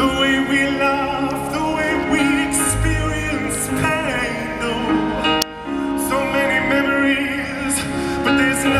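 Live band music with a high singing voice carrying a wide vibrato over sustained instrumental accompaniment. About five seconds in there is a sharp click and a brief dropout in the sound.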